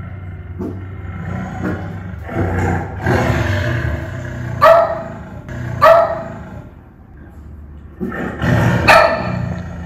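A tiger growling and roaring through a TV's speakers, with a cavoodle puppy barking sharply twice about halfway through and once more near the end.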